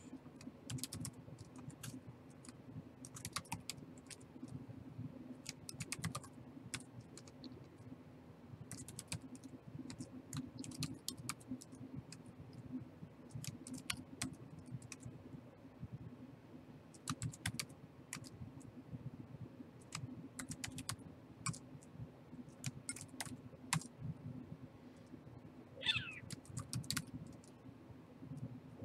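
Typing on a computer keyboard: irregular runs of quick key clicks over a low steady hum. Near the end, a short high squeak falls in pitch.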